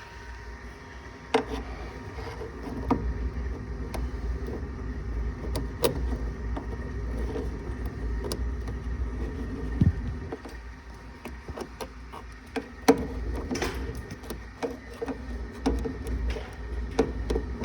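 Scattered clicks and knocks of tools and metal furnace parts being handled during reassembly, over a steady low rumble.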